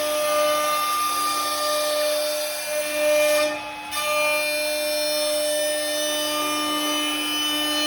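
Morbidelli CX 100 CNC boring and machining centre running: a steady motor whine over the hiss of machining. The hiss drops out briefly about halfway through.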